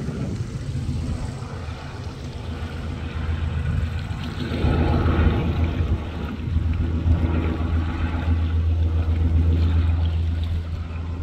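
Antonov An-2 biplane's radial engine and propeller droning steadily overhead, growing louder about four and a half seconds in, with wind noise on the microphone.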